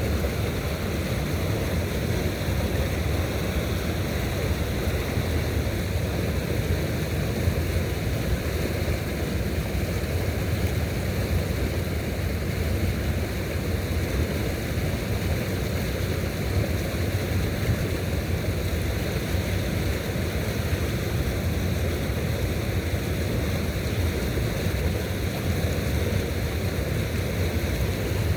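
Steady rushing outdoor noise with a strong low rumble, unbroken and without distinct events.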